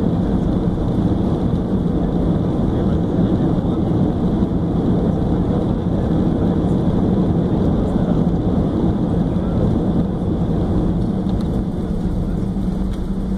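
Airbus A320 cabin during the landing rollout: a loud, steady rumble of the engines and the wheels on the runway as the jet decelerates with its ground spoilers up, easing off slightly near the end.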